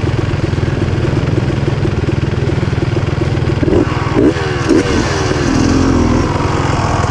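Dirt bike engine running steadily while riding a trail, with the revs climbing and dropping sharply three times in quick succession a little past halfway.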